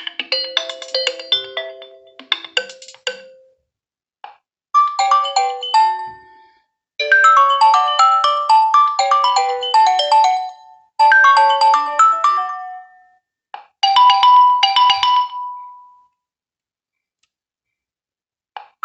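Nokia 1.3 smartphone playing ringtones through its speaker: a series of short, bright melodic phrases with brief pauses between them, the last ending on a held note.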